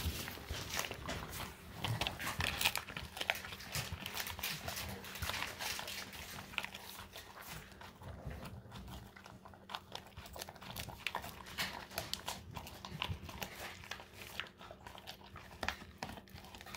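A husky gnawing on a stick of dried cod: irregular crunches and clicks of teeth on the hard dried fish, busiest in the first few seconds.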